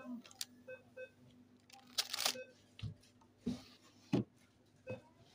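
Plastic-wrapped ice-cream bars rustling and knocking against the wire baskets of a shop freezer as they are picked through by hand: a string of short, irregular crinkles and bumps over a faint steady low hum.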